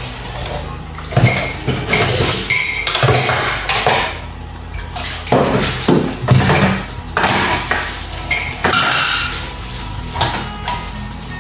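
Dishes being washed in a stainless steel sink: plastic plates, a pot and a mug clatter and knock together in irregular bursts as they are scrubbed with a sponge and stacked.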